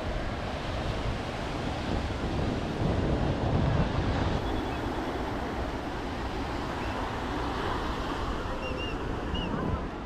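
Ocean surf breaking on a sandy beach, a steady wash of waves with wind buffeting the microphone. The surf swells louder about three to four seconds in.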